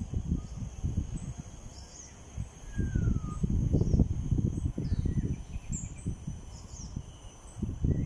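Gusty low rumble of wind on the microphone, in uneven surges, over a steady high insect drone. A few faint short bird chirps and one falling whistle about three seconds in.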